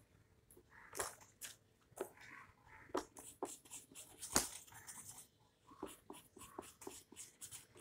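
Faint handling noise from a sheet of drawing paper and sketch pens: scattered short clicks and taps, about one a second, the loudest a little past the middle.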